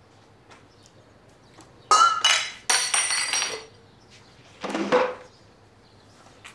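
Crockery and glassware clinking on a table: a sharp ringing clink about two seconds in, then a longer ringing clatter, and a duller knock around five seconds.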